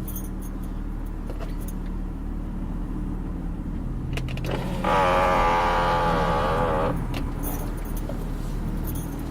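Car engine idling, heard from inside the cabin, with light jingling clicks now and then. About halfway a loud wavering tone sounds for about two seconds, then stops.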